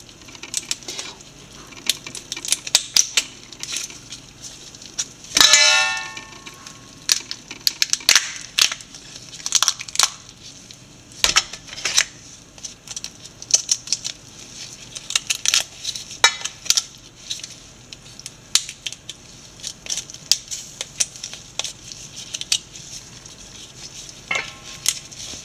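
Cooked blue crab being cleaned with a small knife in a stainless steel pot: shell cracking and prying, with a run of sharp clicks and the blade tapping now and then. A brief squeak comes about five seconds in and again near the end.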